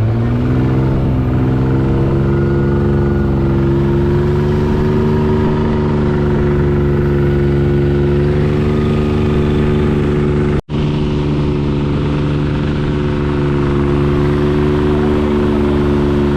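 An engine running loud and steady after rising in pitch during the first second or two, with a split-second break about two-thirds of the way through.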